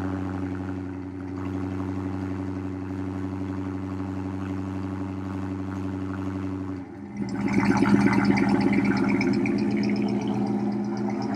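A 2020 Chrysler 300S's 5.7-litre HEMI V8 cold-starts about seven seconds in, through Carven R mufflers and 5-inch tips. The exhaust flares up loud on the start, then eases into a fast, pulsing cold idle. Before the start there is a steady low hum.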